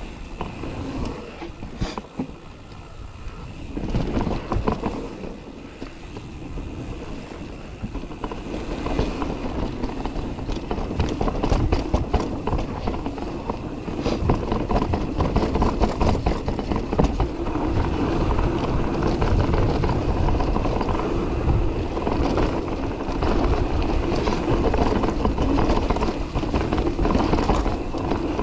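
Mountain bike riding down a dirt forest singletrack: the tyres roll over dirt, and the chain and frame rattle with many short clatters over bumps. It gets louder about four seconds in and again as the speed picks up.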